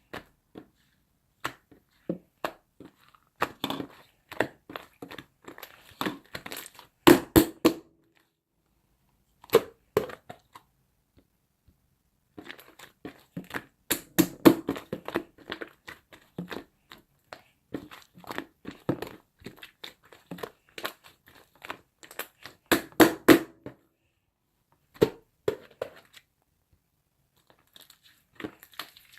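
Irregular crinkling and crunching noises, like something being crumpled or crushed by hand, in quick clusters of sharp crackles with short silent pauses between them.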